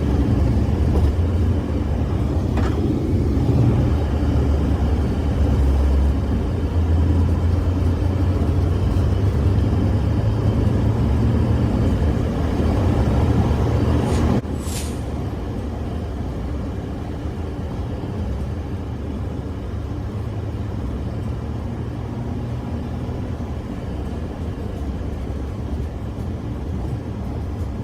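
Steady low rumble of a road vehicle driving, engine and tyre noise. About halfway through, the level drops suddenly and it carries on quieter.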